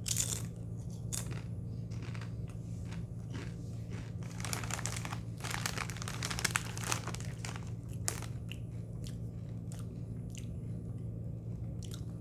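Person biting and chewing Doritos tortilla chips, with crisp crunches. The crunching is densest and loudest in the middle, with a sharp crack a little after that and lighter chewing ticks around it.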